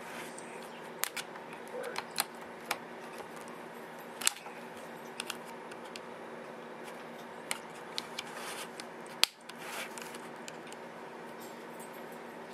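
Irregular small sharp clicks and ticks of a thin metal pry tool working against the plastic case and internals of an HP Stream 7 tablet, with one louder snap a little after nine seconds in, over a steady low hum.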